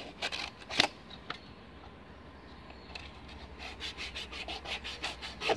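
A hand tool scraping and rubbing on the plastic cable-entry ports of a fiber-optic splice closure, trimming them open, in short irregular strokes. A sharp click comes about a second in, the scraping eases for a moment, then picks up again as a run of quick strokes.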